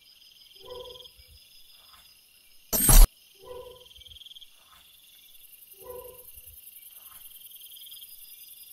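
Crickets chirping steadily, with a short call repeated three times about two and a half seconds apart. A loud, sharp crackle cuts in once, about three seconds in.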